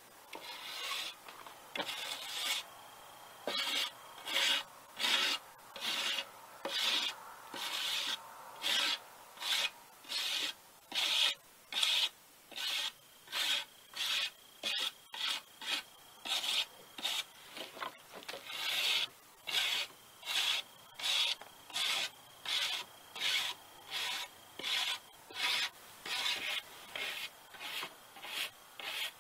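Wire brush scrubbing the charred surface of a burnt cedar board in repeated back-and-forth strokes, about one and a half a second, with a stiff bristle brush in use by the end. This is the shou sugi ban step of brushing away the loose char after burning.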